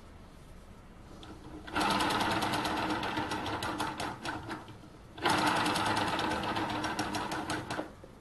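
Home-built gamma-type Stirling model engine spun over by hand twice, its mechanism clattering rapidly for about three seconds each time and slowing as it coasts down rather than keeping running. The builder thinks the compression could be too high.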